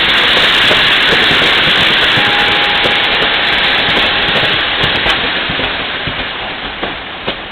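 Express passenger train rolling in along the platform and slowing, a steady loud rushing of wheels on rails that fades over the last few seconds, with a faint thin whine midway.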